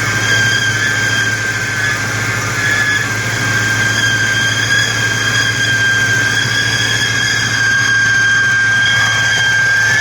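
2003 Ford Mustang SVT Cobra's supercharged 4.6-litre V8 running steadily, with a steady high-pitched hum over the engine sound. It is the hum that the owner says comes only while the engine is cold, between 800 and 1200 rpm, and goes away once it warms up.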